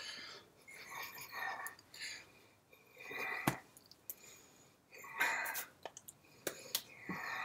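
A person's soft, breathy, whisper-like mouth and breath sounds in short irregular bursts, with a few sharp taps as his hands strike each other while signing, about halfway through and near the end.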